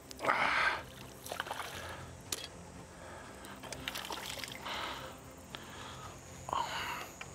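A hooked crucian carp splashing and thrashing at the water surface as it is played in on a long pole rod, in several bursts, the loudest about half a second in.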